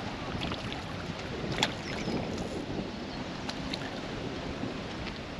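Steady wind noise on the microphone and water lapping against a concrete breakwater, with a hooked fish splashing at the surface. One sharp click about a second and a half in.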